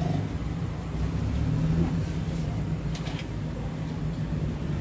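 Steady low rumble of road traffic, with a light click about three seconds in.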